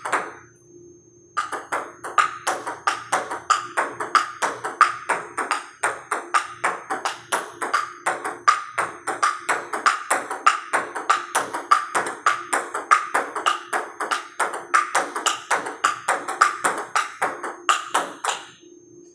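Table tennis solo rally: a plastic ping-pong ball clicking off the paddle, the table top and the table's raised half used as a rebound board, several sharp hits a second in an even rhythm. It starts after a single hit and a short pause and stops shortly before the end.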